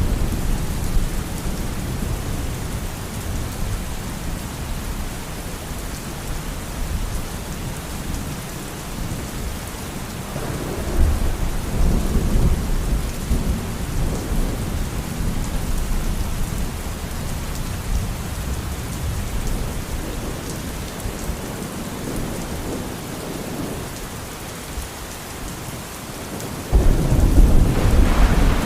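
Steady rain with rolling thunder. A low rumble swells about ten seconds in, and a louder peal of thunder breaks in suddenly near the end.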